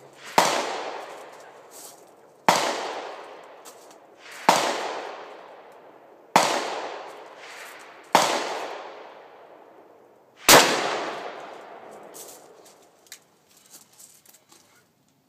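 Handgun firing six single shots about two seconds apart, each trailing off in a long echo; the last shot is the loudest. A few faint clicks follow near the end.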